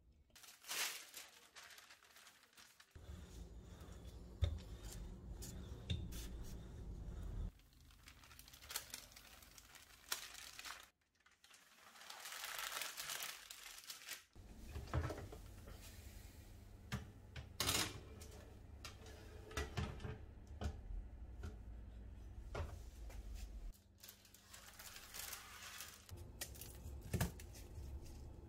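Handling sounds of baking paper and shortbread: parchment rustling and crinkling under hands and a tray, with stretches of low rumble that start and stop abruptly. Near the end, baked shortbread is snapped into pieces.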